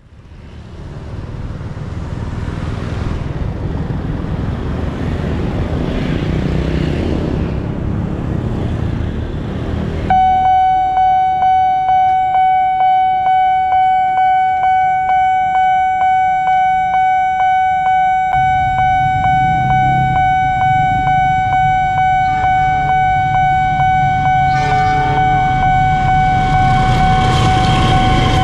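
Cars and motorcycles passing on the road, then about ten seconds in a railway level-crossing warning bell starts ringing about twice a second. Under the bell a diesel locomotive's rumble builds as the train approaches, with a brief horn near the end.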